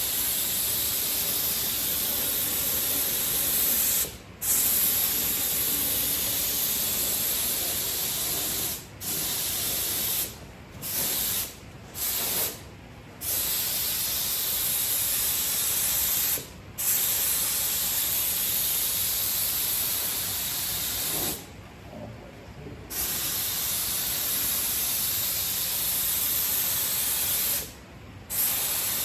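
Spraying with compressed air: long hissing bursts of spray, about nine of them, lasting from under a second to several seconds, with short breaks between. This fits coats of paint being sprayed.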